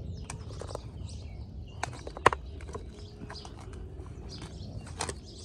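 Wooden Jenga blocks clacking as the tower is handled: a few light clicks and one sharp knock about two seconds in.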